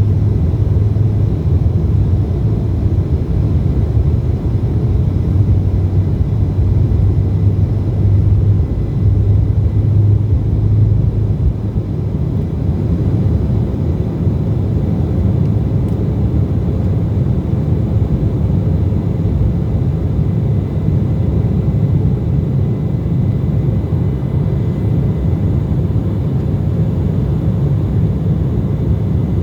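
Jet airliner cabin noise during takeoff: a steady, loud low rumble of engines and airflow with a faint high steady whine. It eases slightly after about twelve seconds.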